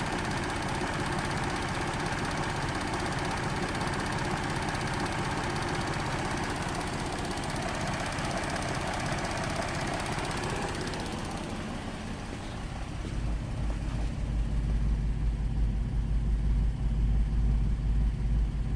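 2008 GMC Acadia's 3.6L V6 idling with a rattling, ticking noise that comes on right after the misfire codes are cleared, which the owner takes for a stretched timing chain. About twelve seconds in, the rattle fades and a deeper low rumble grows louder.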